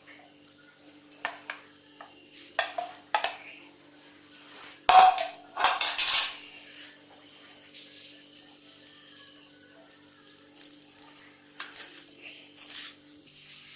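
A spoon scraping and knocking against a frying pan as cooked rice is added and stirred into fried tulsi leaves and spices. There is a loud clatter about five to six seconds in and lighter scrapes near the end.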